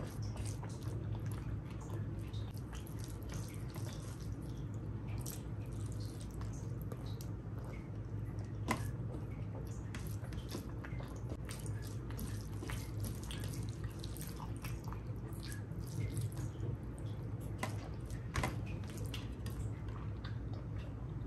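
Close-up wet eating sounds: chewing and lip smacks making a string of small sticky clicks, two sharper ones about 9 and 18 seconds in, over a steady low hum.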